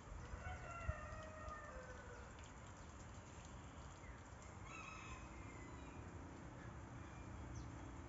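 Faint rooster crow: one long crow of about two seconds, its pitch sliding slightly down, followed about five seconds in by a shorter, higher call.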